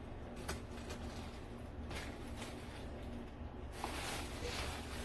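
Soft rustling and light clicks of plastic bags and food containers being handled on a table, with a longer crinkle about four seconds in, over a low steady hum.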